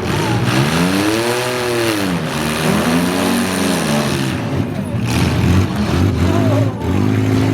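Several demolition derby vehicles' engines running at once. One revs up and falls back about a second in, and another revs briefly a little later, over a constant mechanical din.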